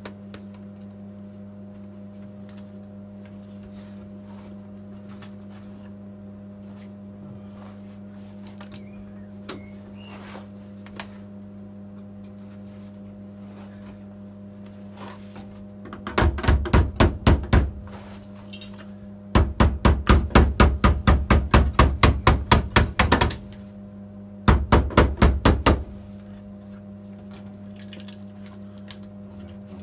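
Welder seam-welding the steel heel board of a classic Mini: three bursts of rapid, even crackling, about one and a half, four and one and a half seconds long, over a steady low electrical hum.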